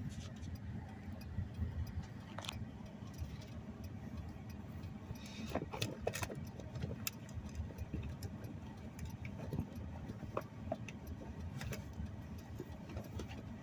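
Car idling, heard from inside the cabin as a steady low rumble, with scattered light clicks at irregular intervals.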